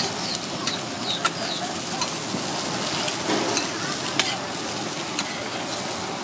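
Eggs sizzling in oil on a flat-top griddle, with sharp clicks and scrapes of a metal spatula against the plate as the eggs are flipped.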